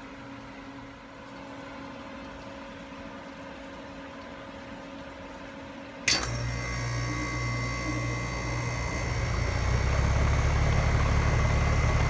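Rheem 5-ton condensing unit with a Copeland scroll compressor starting up. A faint steady hum, then about six seconds in a sharp clack as the compressor kicks on, then a loud steady running hum that grows louder again a few seconds later. This is the scroll's startup impact, which the added 90s in the suction line are meant to keep from carrying into the house.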